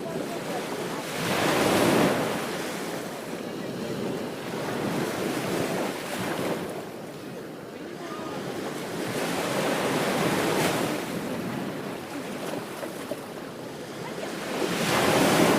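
Ocean waves breaking on a beach: the surf hiss swells and ebbs as a wave crashes and washes in about every four to five seconds, four times over.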